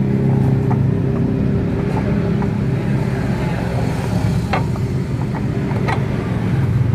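A motor runs steadily with a low hum. A few sharp clicks of parts being handled sound about four and a half and six seconds in.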